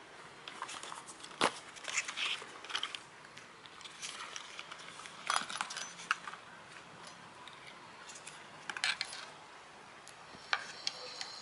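Hands handling a cardboard box, plastic wrapping and small electronic parts and cables: scattered light clicks and clatter with bursts of crinkling plastic.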